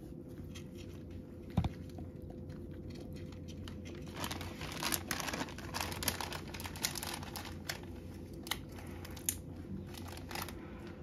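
Domestic cat crunching dry kibble topped with bonito flakes. Scattered crunches, then a busy run of quick crisp crunches in the middle, thinning out again near the end, with one louder knock about a second and a half in.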